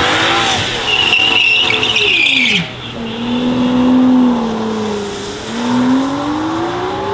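Aston Martin V12 Vantage's 5.2-litre twin-turbo V12 launching hard: the tyres squeal in wheelspin for about a second and a half, cutting off suddenly. The engine then runs steady, dips briefly and climbs in pitch as the car accelerates away.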